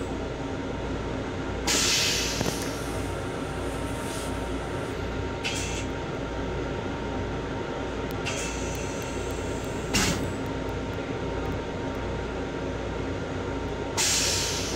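Steady rumble of a Long Island Rail Road M7 electric railcar, heard from inside its restroom, with a strong low hum. Several short hisses break through, and there is a single sharp knock about ten seconds in.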